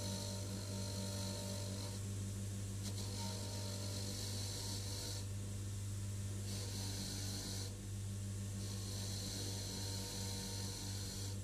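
Electric bench grinder motor running with a steady hum, and the hiss of a steel surface-gauge base pressed against the spinning wheel, taking off rust. The hiss breaks off for a second or two about four times, each time the part is lifted away and turned.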